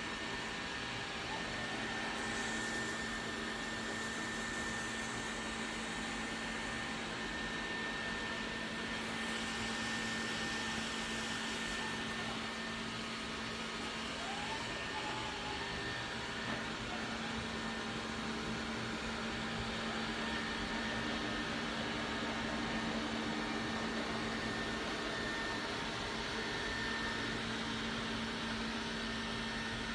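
Xiaomi X20+ robot vacuum cleaner running, a steady motor hum with a faint high whine over it.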